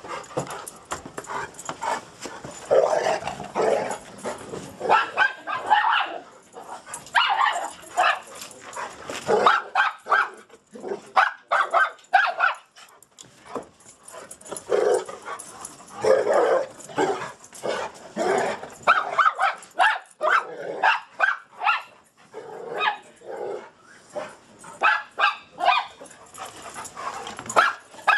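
Dogs barking over and over in short bursts, with a few brief lulls.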